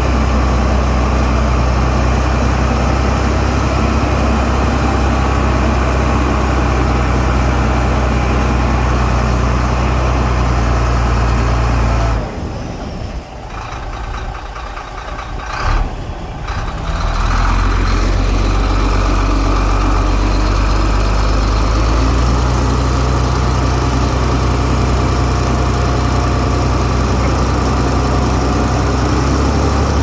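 Heavy earthmoving machine's diesel engine running steadily with a deep hum. The sound drops away for about five seconds in the middle, then comes back.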